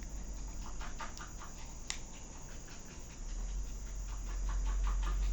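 Faint steady hiss with scattered light clicks, one sharper click about two seconds in, as the buttons of a small portable Bluetooth speaker are pressed while it is being switched over to FM radio; a low hum comes up about three seconds in.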